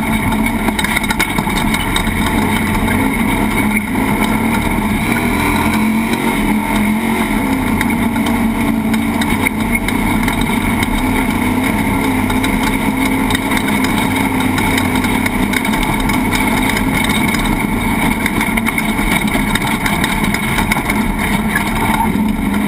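Onboard sound of a class 1450 off-road race truck driving a desert qualifying lap: the engine running steadily under load at a fairly constant pitch, mixed with the continuous noise of the truck over the dirt.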